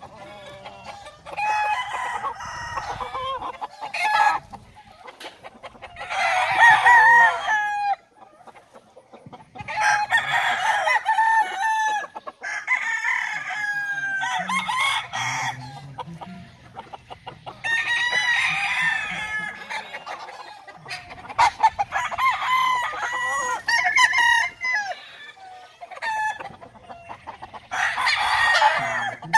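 Gamefowl roosters crowing again and again, about seven crows of a couple of seconds each from several birds, some overlapping, with clucking between.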